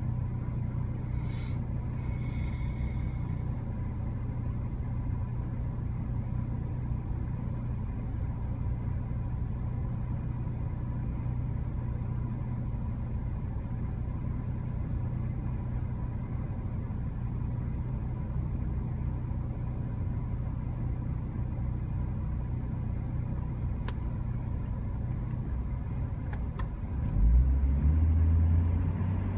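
Steady low engine rumble with a constant hum, swelling deeper and louder for a couple of seconds near the end.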